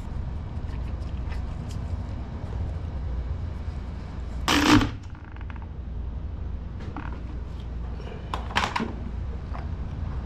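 Metal motorcycle drive parts being handled and set down: one loud short scrape or clatter about halfway through, a smaller one near the end, and faint light knocks in between, over a steady low rumble.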